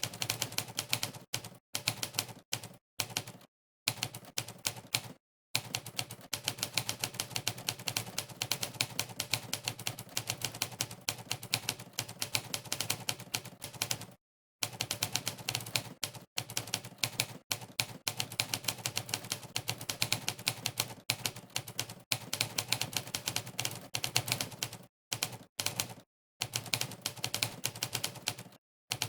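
Monkeytype's simulated typewriter keystroke sound effect, one clack per key press, at a fast typing pace. It stops dead for a few brief pauses, the longest about halfway through.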